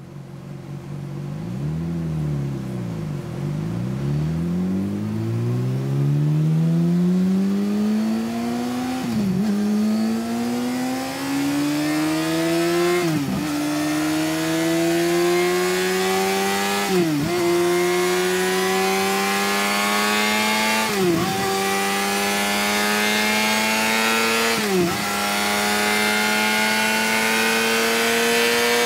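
2014 Yamaha R6 inline-four sportbike engine, breathing through a Two Brothers S1R slip-on exhaust, pulling hard on a chassis dyno. The revs climb from low, with five quick dips in pitch about every four seconds as it upshifts, each followed by a fresh climb toward high revs.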